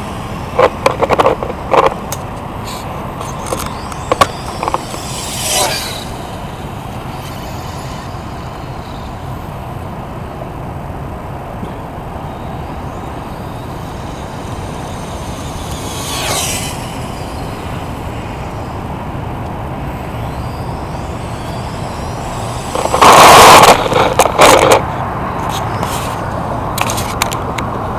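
Electric RC touring car (Duratrax Vendetta with a Novak 10.5 brushless motor) making fly-by passes, its sound swelling and fading several times over steady background noise. The loudest pass comes about 23 seconds in, with sharp clicks around it.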